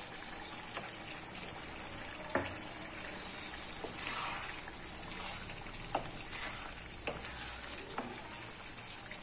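Chicken karahi sizzling in a wok, frying in ghee that has separated at the final bhuna stage, while a wooden spatula stirs it and knocks against the pan several times.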